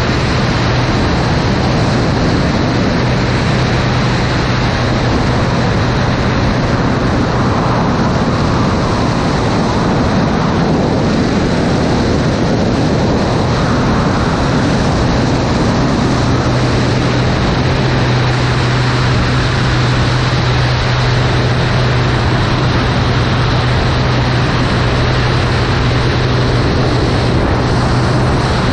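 Single-engine aerobatic propeller plane in flight: a steady engine and propeller drone under a heavy rush of wind. The low hum of the engine weakens for a stretch during the manoeuvre and comes back strong about halfway through.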